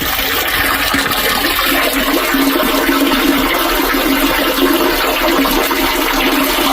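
Water rushing steadily, a loud continuous gush like a flush, in a cesspool or drain line.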